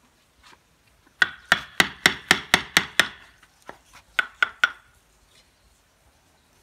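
Wooden mallet striking a chisel to carve into the old trunk of a sanh Nam Điền (ficus) bonsai. There are eight quick blows, about four a second, each with a slight ring, then a short pause and three more.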